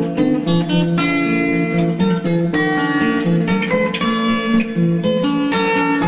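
Background music: acoustic guitar playing a run of plucked notes.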